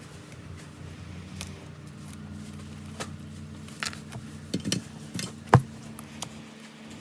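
Small metal tools and phone parts clicking and tapping against a hard work surface, in scattered sharp ticks with the loudest about five and a half seconds in, over a steady low hum.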